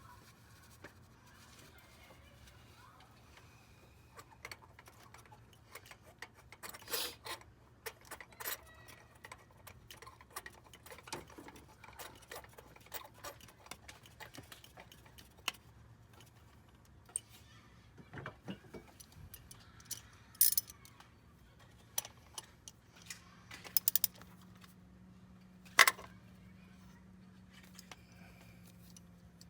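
Scattered clicks and clinks of hand tools working on the engine while its spark plugs are changed, with a few sharper metal knocks.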